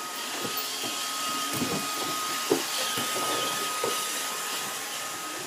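Roomba robot vacuum running, a steady hiss of its motor and brushes with a thin high whine, and a few light knocks along the way.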